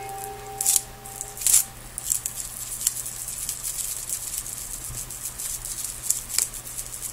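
Rustling, crinkling and light scraping of thin decorative transfer foil being handled and rubbed down, over a faint steady low hum. Two louder rustles come in the first two seconds, followed by a scatter of faint ticks and crinkles.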